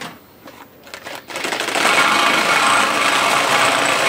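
A few light handling clicks, then the NC TPB carpet binding machine, a chainstitch sewing machine, starts about a second in. It runs steadily, sewing binding tape onto the carpet edge.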